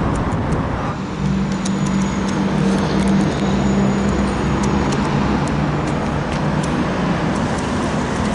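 City street traffic noise with a steady low engine hum, like a vehicle idling or passing close by, that sets in about a second in.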